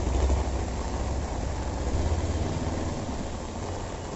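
Steady rain hissing on a wet street, under the low rumble of motor traffic moving through it, which swells briefly twice.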